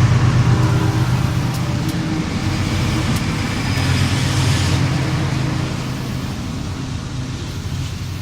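Ferrosur diesel freight locomotives passing at close range: a steady engine rumble with wheel-and-rail noise and a few sharp clicks, easing off over the last few seconds.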